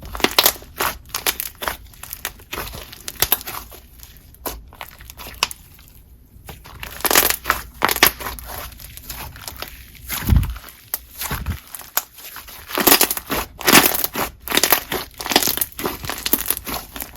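Hands squishing, pressing and poking a crunchy slime, giving irregular runs of sharp crackles and pops. The slime is a clear snow-fizz base topped with a creamy clay slime.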